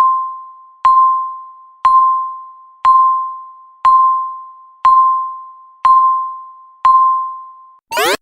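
Electronic countdown-timer beep: a single tone struck once a second, each beep fading out before the next, eight times as the count runs down to zero. Near the end the zero alarm starts, a loud pulsing sound made of rapid rising sweeps.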